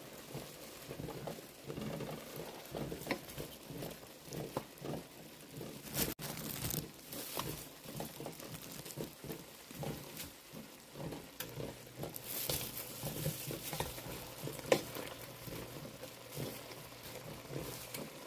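Stir-fry vegetables in a pan, with irregular small clicks and taps of a utensil stirring and a light sizzle.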